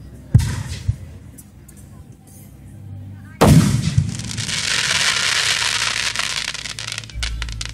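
Fireworks: a sharp bang about half a second in, then a loud shell burst about three and a half seconds in. The burst is followed by several seconds of dense crackling, which thins out to a few scattered pops near the end.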